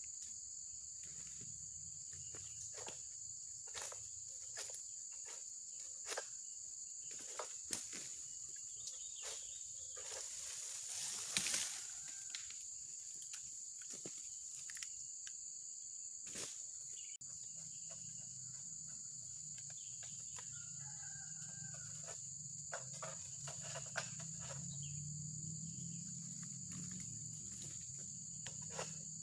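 Steady high-pitched drone of insects, with scattered short clicks and knocks and one louder rustling swell about eleven seconds in.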